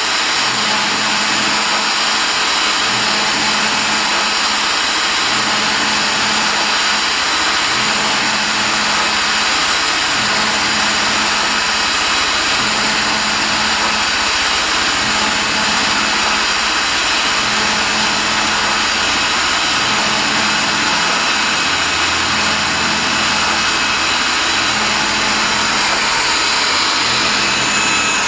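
Electric pipe threader turning a steel air compressor tank loaded with gravel, TSP and water: a loud, steady rattling rush of gravel and water tumbling inside the tank, with the threader's motor running underneath.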